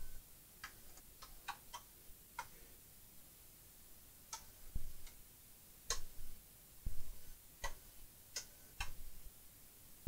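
Multimeter probe tips clicking and tapping against the motherboard while voltage is measured on the power-button pins: about a dozen light, irregular clicks with a few dull knocks among them.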